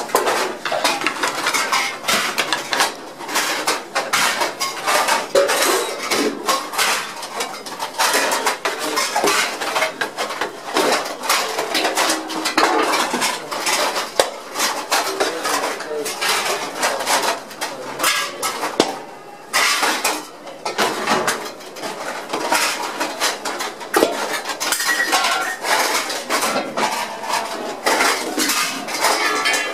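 Metal scoop clanking and scraping against a large steel pan as rice is dished out, with ceramic plates clinking; a continual clatter of many sharp knocks, easing off briefly about two-thirds of the way through.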